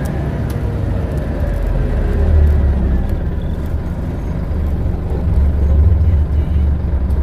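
Scania N94UD Omnidekka double-decker bus with ZF gearbox, heard from on board while it drives: a steady low engine drone that swells slightly a couple of times, with faint whines from the drivetrain above it.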